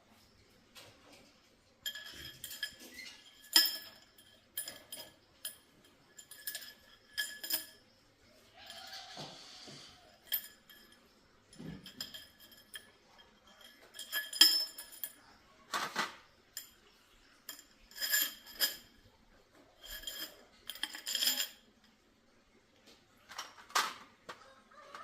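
Metal parts and tools clinking and knocking against each other in irregular strikes, many of them ringing with the same metallic tone, while the shock absorber is worked on. A short hiss about nine seconds in.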